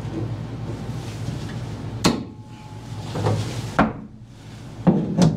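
Sharp knocks and clunks from a deep-reach bar clamp and wooden spacer blocks being handled and tightened against the bulkhead. There are about five separate knocks, the first about two seconds in and the rest close together near the end, over a steady low hum.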